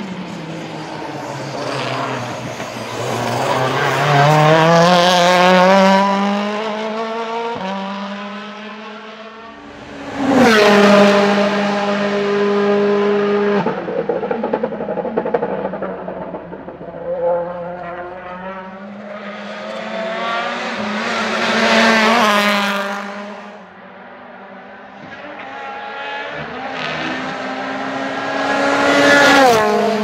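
2014 Citroën C-Elysée WTCC race car's 1.6-litre turbocharged inline-four running hard on track. It climbs through the revs over the first few seconds, then passes loudly several times, at about ten seconds, about two-thirds in and near the end, with the pitch falling each time the car goes by.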